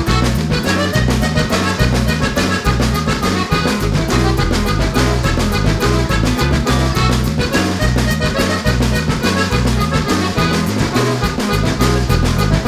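Background music with a steady beat, an accordion-like lead over a stepping bass line, fading out at the very end.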